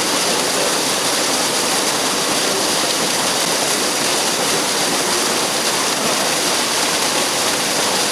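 Small waterfall pouring into a rock pool: a steady, unbroken rush of falling water.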